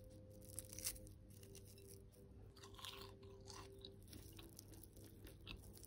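Crisp-crusted roast potatoes being broken apart by hand: faint crackling crunches of the crust, with a couple of sharper cracks about a second in and more crunching midway.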